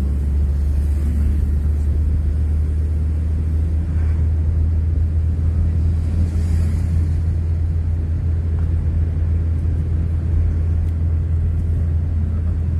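Steady low road and engine rumble heard from inside the cabin of a moving vehicle as it drives along.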